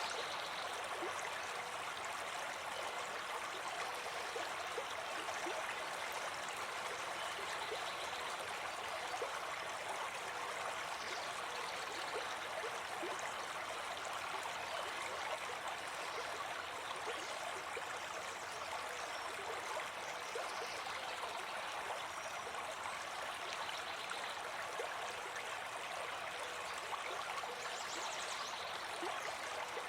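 A brook babbling steadily, an even rush of running water.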